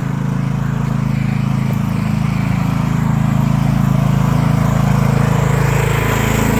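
Mini excavator's small diesel engine running steadily, growing slightly louder as it is approached.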